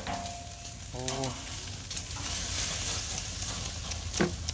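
Whole fish grilling on a wire grate over charcoal, sizzling with a steady hiss.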